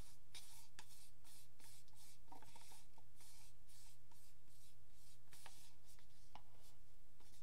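A stick scraping paint out of a paint cup: repeated scratchy strokes, about two or three a second, over a steady low electrical hum.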